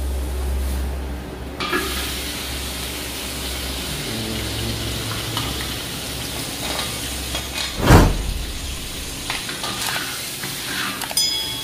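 Sliced pork sizzling as it fries in hot oil in a wok, with a metal spatula stirring and scraping; the sizzle comes on about a second and a half in. A loud knock just before eight seconds in.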